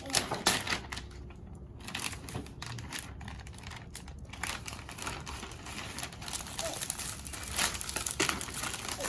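Toy packaging crinkling as it is handled and unwrapped, in irregular bursts, loudest in the first second.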